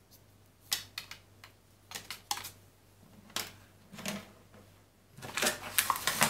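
Scattered light clicks and taps of a small plastic electronics module and its wires being handled and set down on a wooden desk, with a quicker run of clatter near the end.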